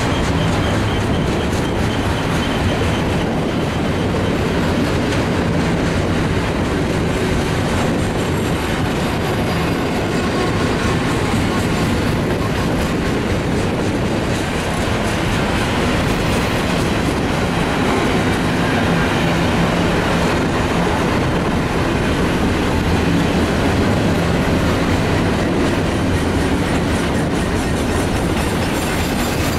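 BNSF double-stack intermodal container train's well cars rolling past at steady speed: a continuous rumble of steel wheels on rail with wheel clatter.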